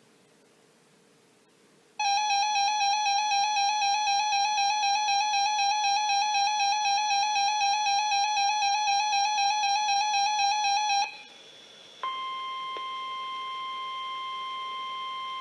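A loud, wavering electronic tone with overtones sounds for about nine seconds and stops. About a second later the steady 1050 Hz NOAA Weather Radio alert tone starts and holds, marking an incoming weather alert broadcast.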